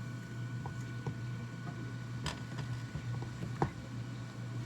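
A few scattered light clicks and taps, like a cooking utensil knocking against a pan as food is stirred, over a steady low hum.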